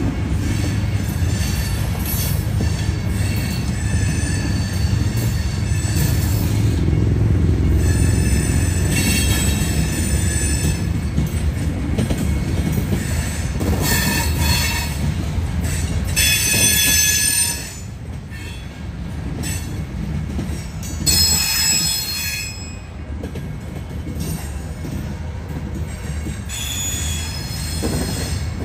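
Loaded covered hopper cars of a freight grain train rolling slowly past: a steady rumble of steel wheels on rail, with high-pitched wheel squeal coming and going many times. The rumble drops a little just past halfway.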